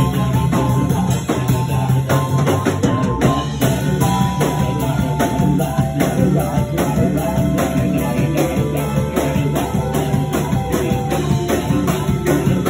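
Live blues band playing: an amplified harmonica blown into a hand-cupped microphone plays a stepping melodic line over a drum kit with busy cymbals and a steady low backing.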